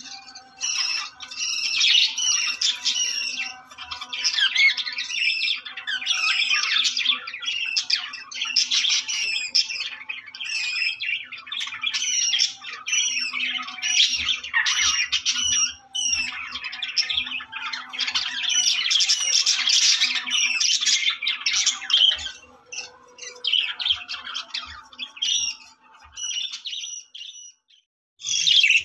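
Budgerigars chattering: a dense, almost unbroken stream of warbling chirps and squawks that thins out near the end.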